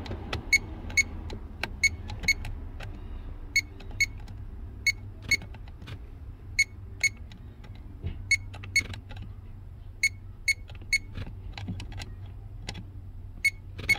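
Short electronic beeps, mostly in quick pairs about half a second apart and recurring every second and a half or so, over a steady low hum.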